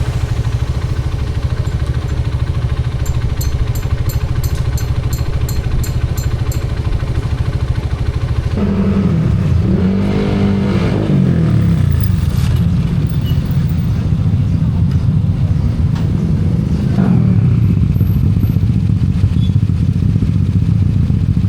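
Motorcycle engine running under way, a steady drone. About eight seconds in the pitch changes and sweeps up and down for a few seconds as the engine revs, and it shifts again near the end.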